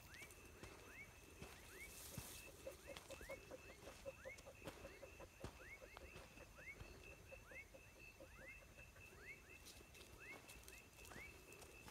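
Faint evening chorus of frogs: short chirping calls repeat about every half second over a steady, high, pulsing trill. A quick run of low croaks joins in for a few seconds in the first half.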